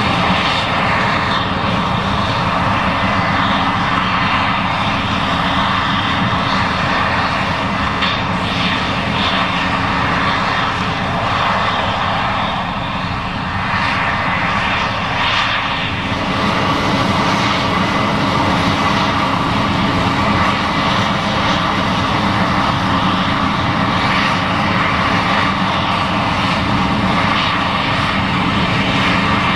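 Case IH 7140 Axial-Flow combine running steadily under load while harvesting corn: a loud, even mechanical drone, easing slightly for a moment about halfway through.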